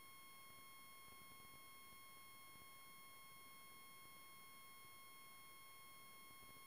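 Near silence with a faint, steady high-pitched tone and its overtones, unchanging throughout.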